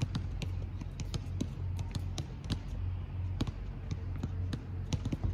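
Tennis balls bouncing on a hard court: a run of short, sharp, irregular pops over a steady low hum.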